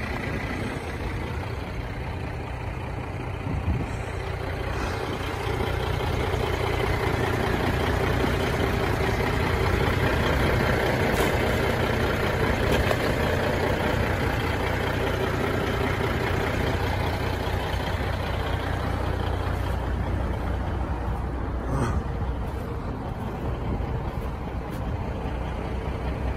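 A heavy truck engine running at idle, a steady low hum, under the rush of highway traffic that swells for several seconds and then eases off.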